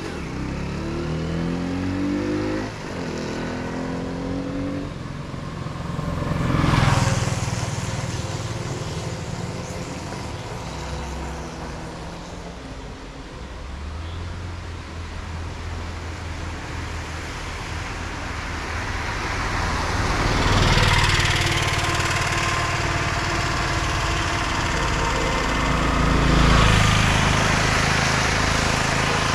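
Road vehicles driving past one after another. An engine climbs in pitch as it speeds up at the start. Passing vehicles swell loudest about seven seconds in, around twenty seconds in and again near the end.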